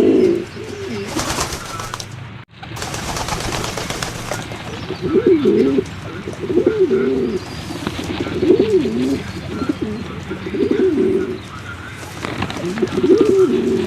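Pigeons cooing, one low, wavering coo after another, repeating about every second through the latter part.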